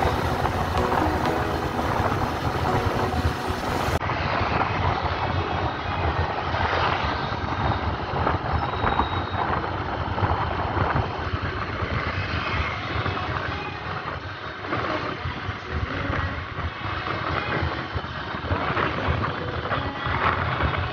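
A motorcycle cruising steadily along a paved road: engine running at road speed, with wind buffeting the microphone.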